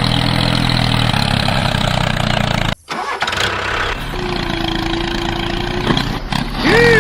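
Small engine running steadily. It cuts off abruptly about three seconds in, and a different, quieter mix follows: a held tone, then a short swooping squeal near the end.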